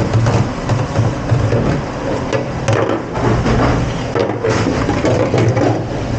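Dishes and utensils clattering and knocking over and over, over a steady low machine hum.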